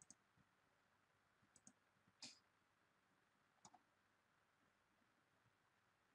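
Near silence broken by a few faint computer mouse clicks, several of them in quick pairs, the loudest a little over two seconds in.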